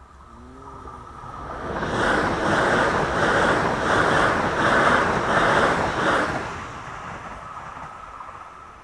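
Electric passenger train passing over a level crossing: a rush of wheel and rail noise builds, peaks with a rhythmic clatter of wheelsets about every two-thirds of a second, then fades. The crossing's warning signal sounds steadily under it.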